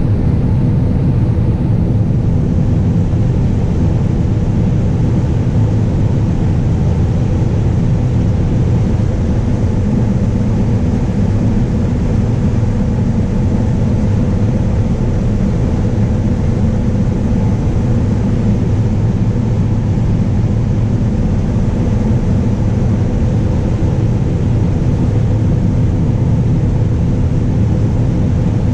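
John Deere combine running steadily while harvesting standing wheat: a loud, unchanging low drone of engine and threshing machinery, with a faint steady hum above it.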